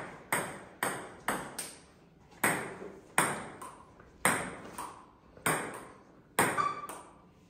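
Table tennis rally: the ball clicking sharply on the table and off the rubber paddles, about a dozen hits at an uneven pace, each with a brief ring in the room.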